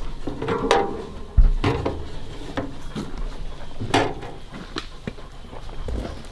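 Handling at an aluminium dog box: scattered clicks and knocks as a collar is fastened on a pointing dog, with one heavier thump about a second and a half in.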